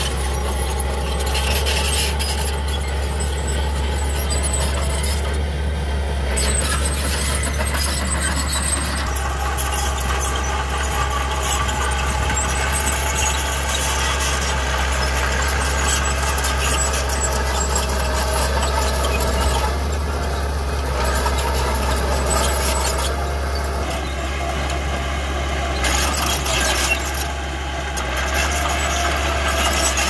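Mini crawler bulldozer at work: its engine running steadily with a loud squeal from the crawler tracks.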